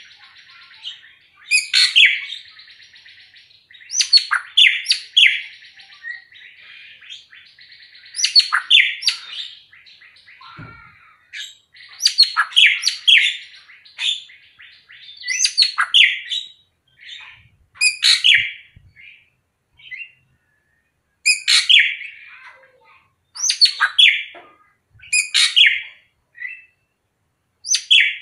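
Srigunting krantil (racket-tailed drongo) singing loudly in varied phrases of short, sharp notes, a new phrase every second or two.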